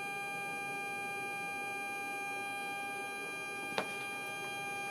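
Steady electrical whine of the 26 V 400 Hz AC supply powering a TRT AHV.5-221 radio altimeter on the test bench, several fixed tones sounding together. A single sharp click about four seconds in.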